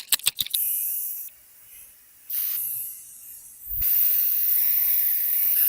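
A few quick rattling clicks, then a spray hissing in three bursts, the last one long and steady.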